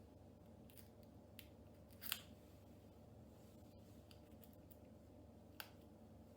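Near silence with a few faint short clicks, the loudest about two seconds in: small plastic ticks as a laptop screen's cable plug is handled and slid into its connector.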